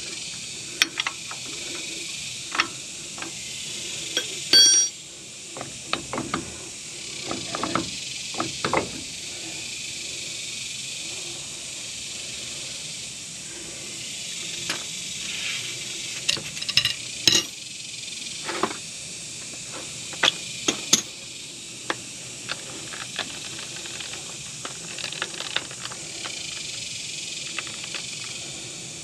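Scattered metal clicks, taps and the odd ringing clink of a wrench worked on a truck's front brake caliper bolts, which are being turned out slowly by hand, over a steady background hiss.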